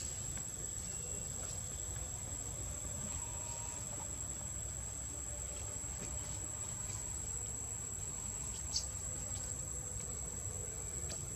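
Steady, high-pitched drone of insects, unbroken throughout, over a low background rumble, with one sharp tick about nine seconds in.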